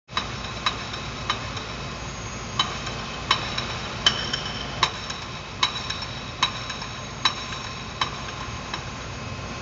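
Hammer blows on a building worksite, about a dozen strikes at roughly one every three-quarters of a second, each ringing briefly with a clear metallic tone, over a steady low background rumble.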